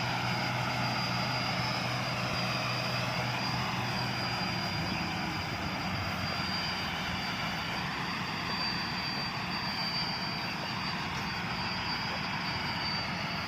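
Rice combine harvester running: a steady dense mechanical drone with a constant high-pitched whine. A low hum under it drops away about four to five seconds in.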